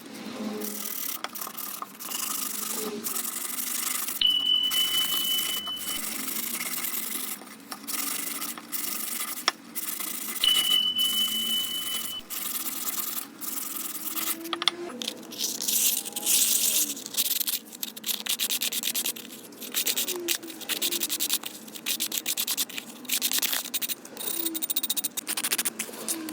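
Sandpaper scratching fast over a ceramic piece in rapid, uneven strokes. A steady high tone sounds twice, each time for under two seconds.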